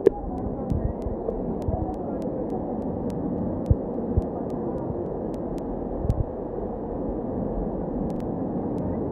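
Swollen floodwater river rushing, a steady low rumble, with a few dull thumps now and then.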